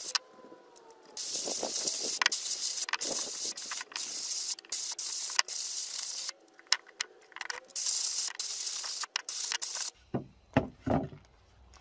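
Handheld air blast gun hissing in bursts as it blasts a Bosch warm-up regulator housing clean: one long burst, then several shorter ones. A few dull knocks near the end.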